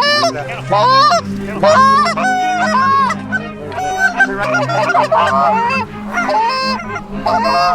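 Many rapid, overlapping Canada goose honks and clucks.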